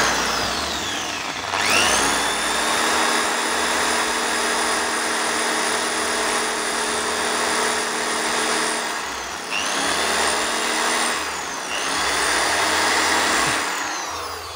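Electric hand drill boring into a motorcycle's steel gear-shift pedal, run in several bursts: each time the motor whines up to speed, runs steadily, then winds down, with one long run near the start and shorter ones after.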